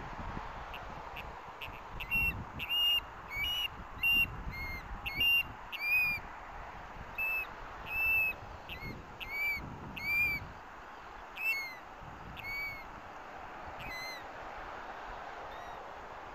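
Osprey whistling calls: a series of about fifteen short, sharp, high calls, several arching downward in pitch, tailing off after about 14 seconds. Steady background hiss of wind and distant traffic underneath.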